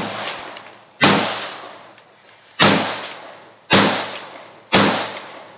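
Pistol shots fired one at a time, about five of them roughly a second apart, each sharp crack followed by a decaying echo.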